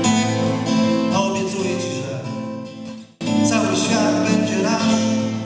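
Acoustic guitar strummed and played as an instrumental passage without singing. The chords die away about three seconds in, break off briefly, then start again suddenly at full level.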